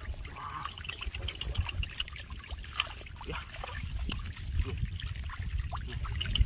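Hands splashing and groping in shallow muddy water, with small irregular splashes and drips as a fish is pulled out of the water by hand.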